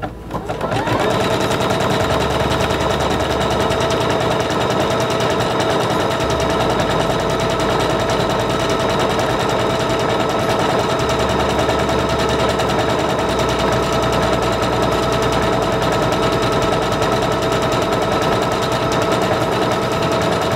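Singer Confidence 7640 electronic sewing machine starting up and stitching steadily, sewing a decorative stitch at its shortest stitch length. It makes a fast, even clatter of needle strokes over a steady motor hum.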